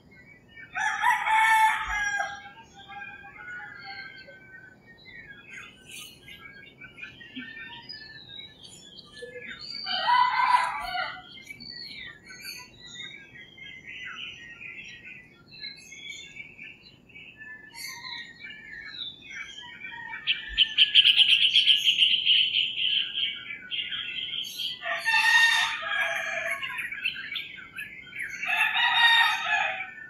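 Roosters crowing four times, each crow lasting a second or two, with small birds chirping between the crows. About twenty seconds in, a steady high buzzing trill runs for about three seconds.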